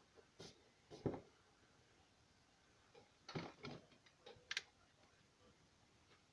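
Drawing tools handled and set down on a desk: a few short light knocks and clicks, with a cluster of them a little past the middle.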